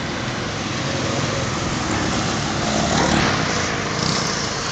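Road traffic going by: small motor scooters and a car passing, their engines and tyres mixed into a steady noise that gets louder about three seconds in as one passes close.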